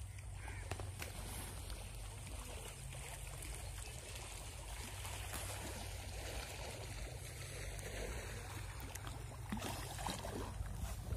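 Steady outdoor noise beside a fish pond: a constant low rumble with faint trickling water, and a few light knocks near the end.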